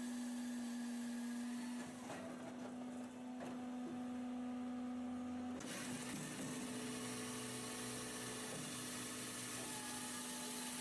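Firewood processor running, a steady machine hum with one constant low tone. The sound changes slightly about halfway through.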